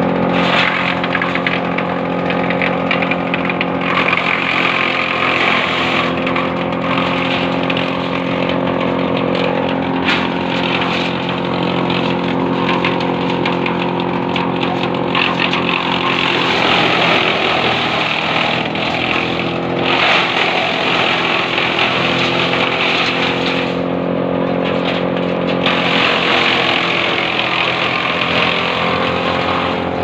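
Engine running steadily to drive a wood chipper, with harsher grinding noise that comes and goes as branches are fed into the cutter. About seventeen seconds in, the engine note sags and wavers for a few seconds, then steadies again.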